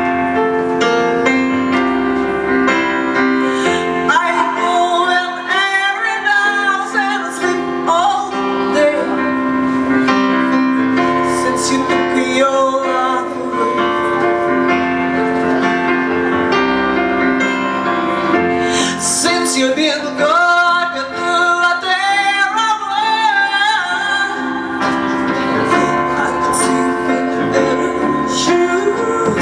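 A woman singing a song with vibrato over sustained piano or keyboard chords, performed live at a vocal recital.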